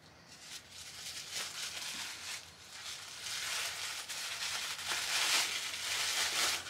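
Paper rustling and crinkling as a small wrapped package is opened by hand, busier and louder in the second half.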